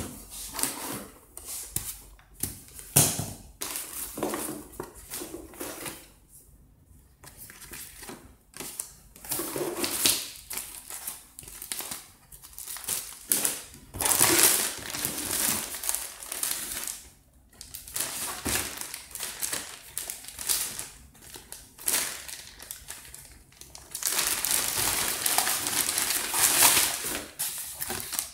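Cardboard packaging being handled: box flaps and packed parts scraping and knocking, and a plastic bag and packing paper crinkling. Longer spells of loud rustling come about halfway through and again near the end.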